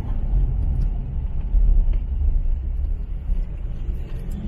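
Steady low rumble of a Nissan Navara pickup driving along a paved road, heard from inside the cab: engine and tyre noise.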